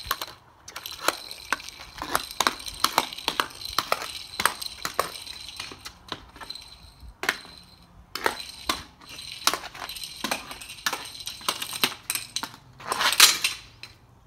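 Hockey stick blade fitted with a Hockey Wraparound, tapping and scraping a Green Biscuit off-ice puck across rough concrete while stickhandling: quick clacks several a second with scraping between them. A louder, longer sweep comes near the end as the puck is shot into the net.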